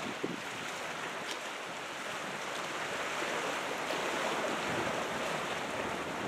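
Ocean surf from a typhoon swell, a steady rushing of breaking waves that swells slightly midway.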